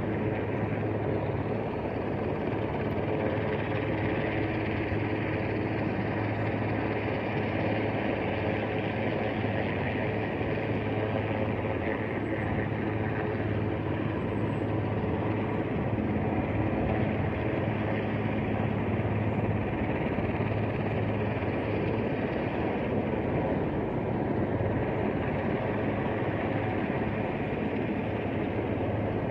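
Helicopter hovering, a steady drone with a constant low hum that does not change in level.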